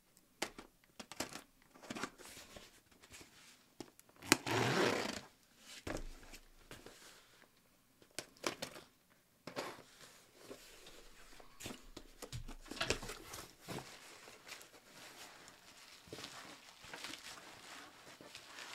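A cardboard shipping box being opened and a replacement laptop screen unpacked from its bubble-wrap packing: scattered clicks and handling knocks, a loud noisy burst about four seconds in, then stretches of plastic crinkling.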